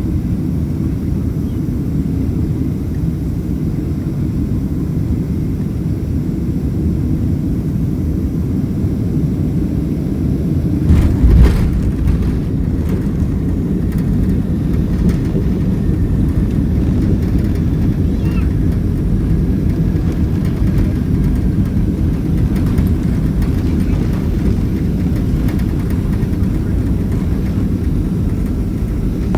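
Cabin noise of a Boeing 767-300ER airliner on landing: a steady low rumble of engines and airflow, with a brief thump and rattle about eleven seconds in, after which the rumble runs a little louder.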